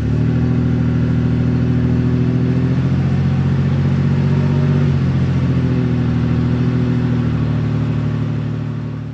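Engine running steadily at idle, a low even hum with a slight regular pulse, getting quieter near the end.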